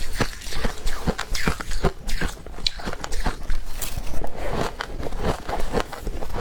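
Close-miked crunching of freezer frost being bitten and chewed, a quick irregular run of crunches, several a second.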